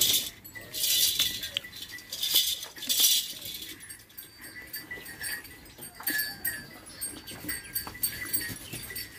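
Cattle shed with livestock: three loud, breathy hissing bursts in the first three seconds, then quieter rustling, with faint animal calls behind.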